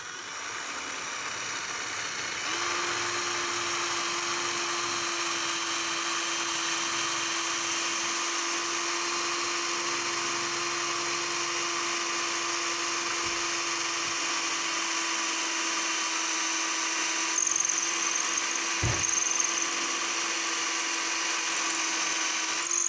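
Gaocheng cordless drill running continuously as its bit bores into a plastered brick wall. The sound builds over the first couple of seconds, then holds a steady whine.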